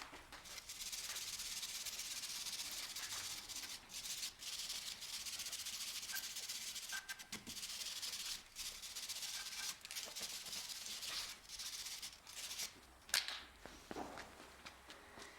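Steady scrubbing or rubbing noise broken by short pauses, with a few knocks; one sharp knock near the end.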